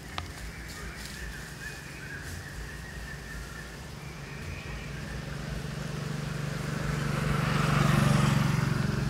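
A motor vehicle passing: a low engine hum that grows steadily louder, is loudest about eight seconds in, then begins to fade.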